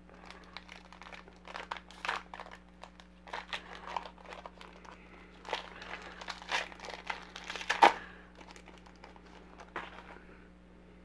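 Silvery foil wrapper of a trading-card pack being torn open and crinkled by hand, in irregular crackling bursts, loudest about eight seconds in before it dies away.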